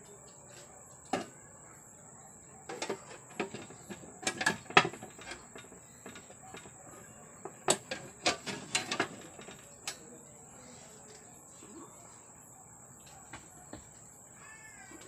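Sheet-metal lid of a steel electrical control box clicking and clanking against the enclosure as it is handled and fitted, in irregular knocks. The knocks are loudest about four to five seconds in and again around eight to nine seconds.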